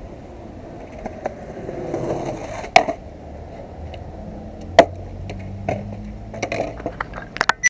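Skateboard wheels rolling on concrete, swelling as the board comes closer, then a loud sharp clack of the board on the ground almost three seconds in and another about two seconds later. Lighter knocks and rattles of the board being handled come near the end.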